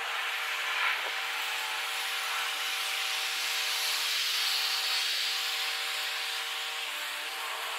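Engine noise of a Boeing KC-767 tanker's twin turbofans climbing away after a touch-and-go, played at four times speed: a steady rushing hiss with several faint high steady tones, swelling slightly midway.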